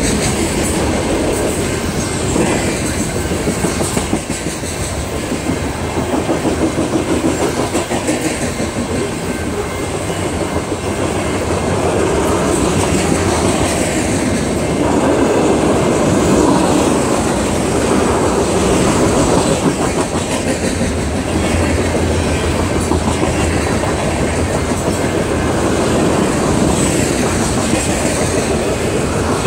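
Loaded coal hopper cars of a freight train rolling past: a steady, loud noise of steel wheels on the rails with a rhythmic clickety-clack.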